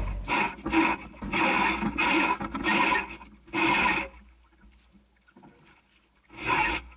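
Jib being rolled in on a sailboat's roller furler: the sail and furling gear rustle and scrape in a run of short bursts for about four seconds. Then it goes near quiet, with one more short burst near the end.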